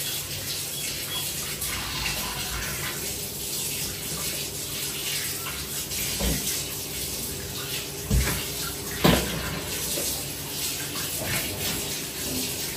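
Tap water running steadily while raw chicken breast is rinsed and cleaned under it, with a few short knocks in the second half.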